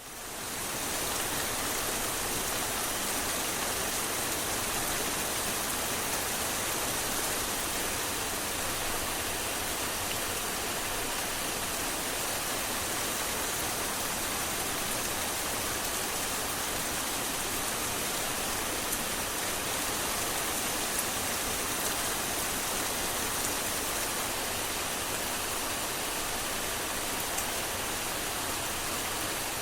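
Steady, dense rain, an even hiss of many drops with a few sharper single drop ticks, fading in over the first second.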